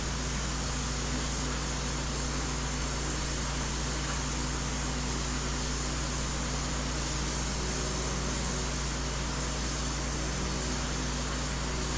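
Steady fan-like hiss with a low hum underneath, with no knocks or strikes.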